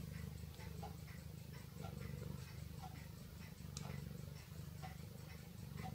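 Domestic cat purring close by: a faint, steady low rumble that swells and fades with its breaths. A faint tick comes about once a second.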